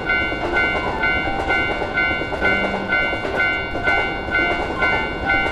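Japanese railroad crossing warning bell ringing its electronic "kan-kan" about twice a second while a train rumbles and clatters past.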